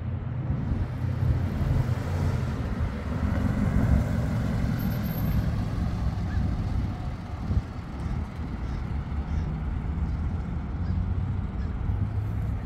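1957 Lincoln Continental's 368 cubic-inch V8 running as the car drives past, with tyre noise. It is loudest a few seconds in as the car comes nearest, then eases slightly as it pulls away.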